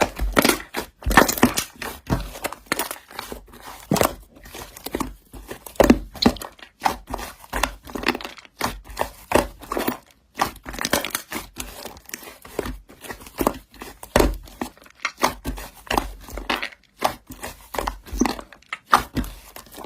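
Slime being pressed, squished and stretched by hand, making a rapid, irregular run of sticky clicks, pops and crackles.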